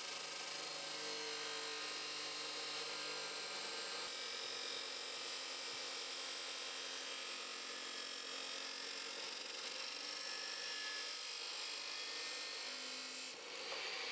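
DeWalt cut-off saw cutting through 50 mm steel angle iron: a steady motor whine with the grinding hiss of the disc in the metal, its pitch shifting a little about four seconds in as the cut goes on.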